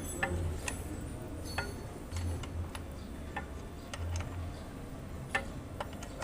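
Scattered light metallic clicks and taps, irregular and a second or so apart: tools and metal parts being handled while the pressure tank is taken apart.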